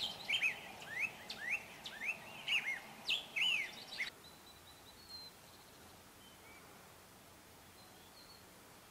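A songbird singing quick repeated chirps, short curving whistled notes, for about four seconds. The song cuts off abruptly, leaving faint open-air background with an occasional distant bird note.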